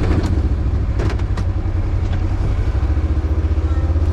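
An engine running steadily with a low rumble, with a few clanks about a second in.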